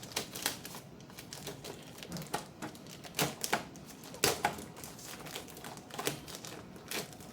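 Irregular sharp clicks and knocks of cardboard and plastic packaging being handled as the keyboard's box is opened, some louder than others.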